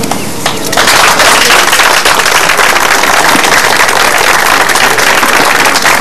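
A few scattered claps, then a crowd breaks into steady applause about a second in.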